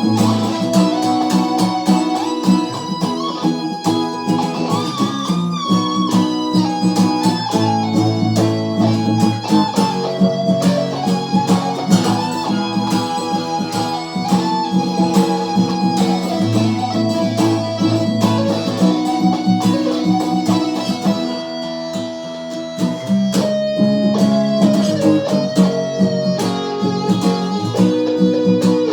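Guitar playing an instrumental jam: a quick, evenly picked pattern of notes under a melody line that bends in pitch now and then.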